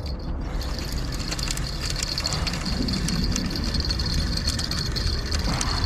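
Steady low rumble with faint scattered clicks from a spinning fishing reel being cranked to bring in a fish.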